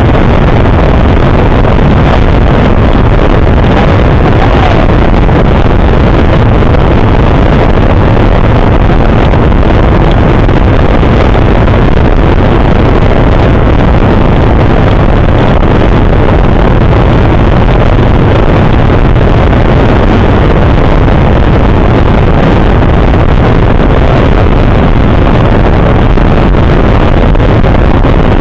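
Bass boat under way on its outboard motor: a loud, steady rush of engine, water and wind buffeting the microphone.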